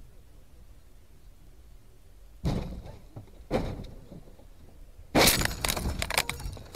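A car collision heard through a dashcam: two knocks, then about five seconds in a loud crash with a rapid clatter of breaking and cracking that lasts over a second.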